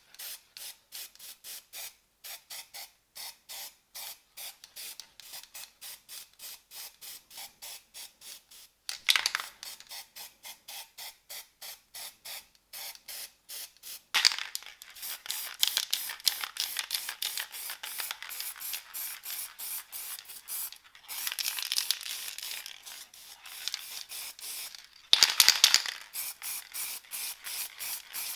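Short hissing spray bursts, about three a second, turning about halfway through into longer, denser spraying.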